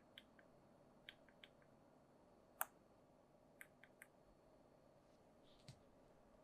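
Faint, scattered light clicks and taps from handling an iPhone 12 Pro and its packaging, with one sharper click about two and a half seconds in.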